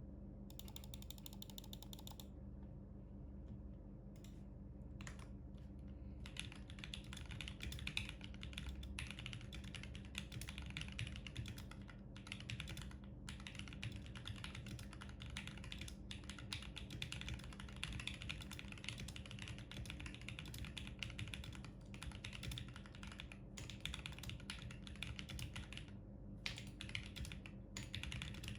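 Typing on a HyperX Alloy Origins Core mechanical keyboard with HyperX Aqua tactile switches and PBT keycaps. A few scattered keystrokes come first, then a fast, dense run of key clacks from about six seconds in, broken by short pauses now and then.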